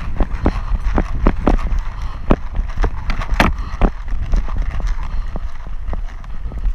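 Running footsteps on a dirt trail with gear knocking about: a quick, uneven series of thuds. Wind rumbles on the microphone throughout.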